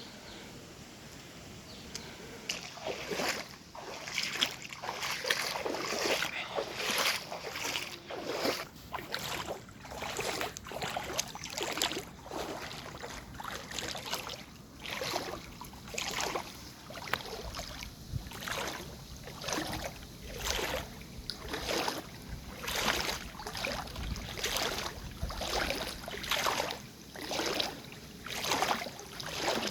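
Water splashing and sloshing in a steady rhythm, about one splash a second, starting a couple of seconds in: something moving through floodwater.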